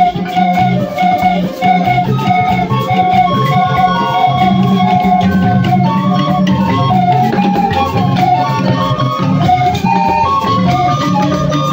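A large ensemble of bamboo panpipes playing a stepwise melody together in held, organ-like notes, with plucked board zithers underneath.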